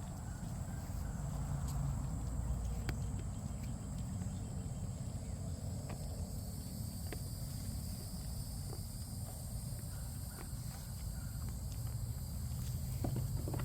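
Goats browsing leaves: scattered sharp clicks and rustles of leaves being pulled and chewed. Behind them is a steady high insect chorus and a low rumble.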